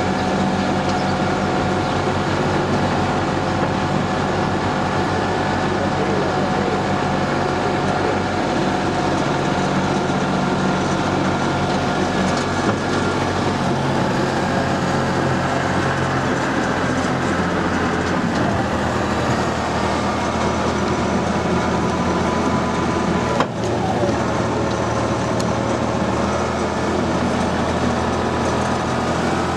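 Engine of an open-air tourist tram running as it drives along, a steady hum with whining tones; its note shifts lower about 12 and 18 seconds in. A single sharp knock about 23 seconds in.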